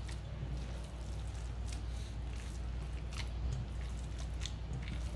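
Raw ground beef meatloaf mixture squelching as it is kneaded and squeezed by hand in a stainless steel bowl, in short irregular squishes over a steady low hum.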